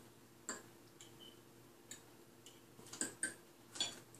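Cutlery clinking and tapping against dinner plates: about eight short, sharp clicks, several with a brief metallic ring, the loudest near the end. A faint steady hum runs underneath.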